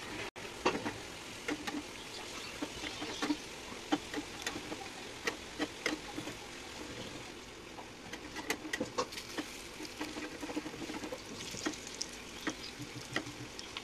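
Red-lentil fritters frying in hot oil in a small aluminium kadai: a steady sizzle with many irregular sharp pops and clicks, as a metal spatula turns the fritters in the pan.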